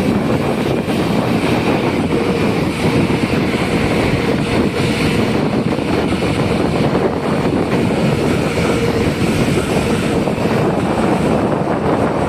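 Heavy machinery running steadily: a Hyundai excavator's diesel engine under continuous work, with wind noise on the microphone.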